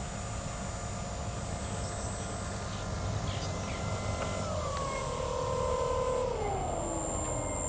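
Brushless electric motor and propeller of a large radio-controlled model plane running with a whine that drops in pitch in two steps, about four and a half and six and a half seconds in, as it slows, over a steady low rumble.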